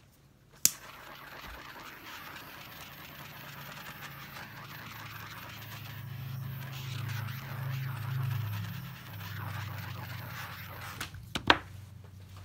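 A small handheld tool worked over a vinyl record: a sharp click, then about ten seconds of steady hissing rush with a low hum that swells in the middle, ending with another sharp click.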